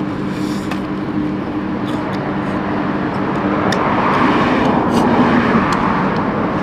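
Steady car noise: a running engine's low hum under a wash of road or ventilation noise, swelling a little about two-thirds of the way through, with a few faint ticks.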